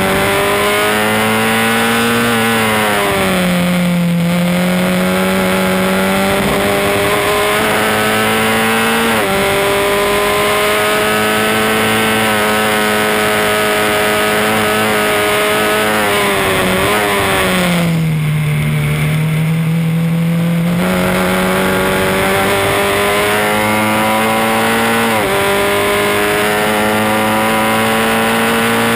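Onboard sound of a Formula Ford 1600 single-seater's four-cylinder Ford Kent engine at racing speed. Its pitch climbs steadily under acceleration and drops sharply at each upshift, about a third of the way in, near the end and again at the very end. It falls back twice when the driver lifts off for corners, once early on and once about two-thirds of the way through.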